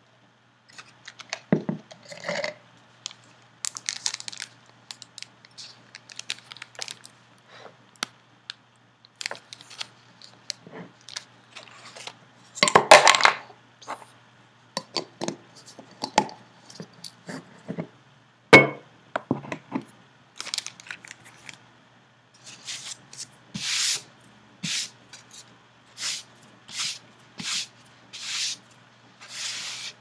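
Plastic fountain-pen ink cartridges clicking and clinking against each other and the inside of a glass jar as fingers rummage through them. Irregular clicks and rustles, with a longer rustle about 13 seconds in, a sharp click a few seconds later, and a run of short evenly spaced rasps near the end.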